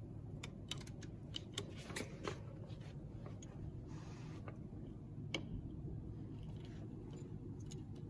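Small clicks and ticks of brake-lever parts handled on a Nordic Racer E9 electric scooter as the brake cable and its adjuster barrel and nut are fitted into the lever. The clicks come in a quick cluster over the first two seconds or so, then one sharper click about five seconds in and a few lighter ones near the end.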